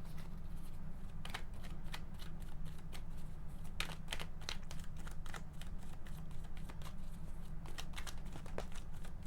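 Tarot cards being shuffled and handled: a run of quick, irregular card snaps and flicks over a steady low hum.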